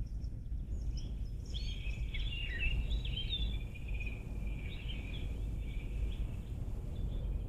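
A songbird singing a fast, chattering song of quick chirps and slurred notes, starting about a second and a half in and tailing off near the end, over a steady low outdoor rumble.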